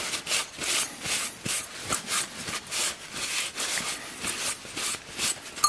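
Paper towel scrubbing dried salt grains off a freshly painted metal lamp canopy, in quick scratchy strokes about three a second, with one sharp click near the end. This is the salt-removal step of a faux-rust paint trick, knocking off the salt so the red primer shows through the black top coat.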